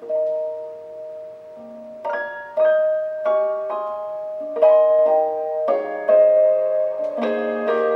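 Slow piano music: a held chord, then from about two seconds in a gentle melody of single notes and chords struck roughly every half second, each left ringing.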